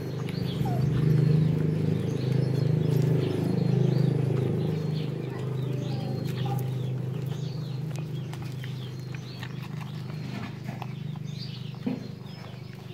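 Litter of puppies nursing from their mother: a busy run of suckling and smacking sounds, with short high squeaks scattered over it.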